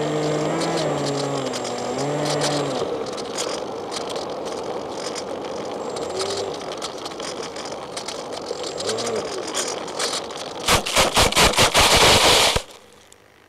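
Easy Star RC plane's electric motor and rushing air, the motor's pitch sliding up and down a few times as it glides in, then about two seconds of loud rapid scraping and bumping as the plane touches down and skids across the grass, stopping suddenly.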